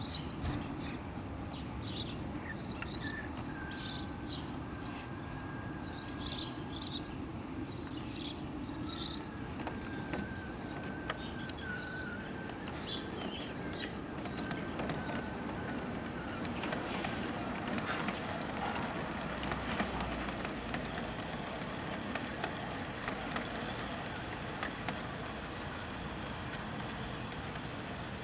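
Garden-scale model train running along its track: a steady running rumble with a faint motor whine, turning from about halfway into a rapid, uneven clatter of wheel clicks as it runs through the truss bridge. Birds chirp in the first half.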